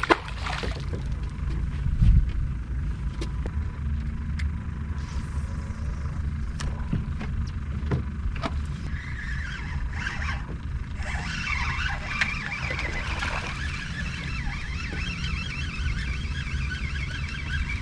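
Wind rumbling on the microphone and water against a small boat's hull, with a thump about two seconds in and a few light clicks. From about nine seconds a high, warbling chatter joins in.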